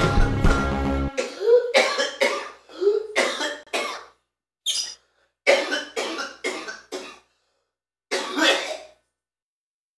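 A man coughing hard in five separate fits, each rough and partly voiced, with silence between them. Rock music cuts off about a second before the first fit.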